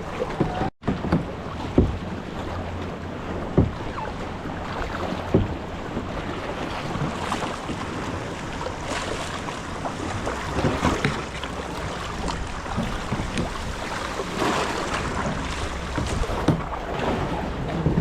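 Wind buffeting the microphone over sea water lapping and splashing around a kayak, with sharp splashes or knocks every couple of seconds, like paddle strokes and the hull meeting waves.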